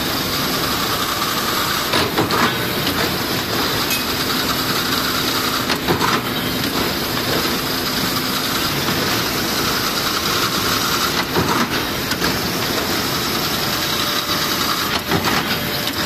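Chain-link fence weaving machine running, weaving galvanized wire mesh: a loud, steady mechanical clatter with occasional sharper knocks.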